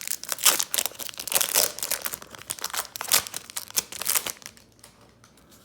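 A Pokémon booster pack's foil wrapper being torn open and crinkled, a dense crackling that lasts about four seconds before it dies down to light handling.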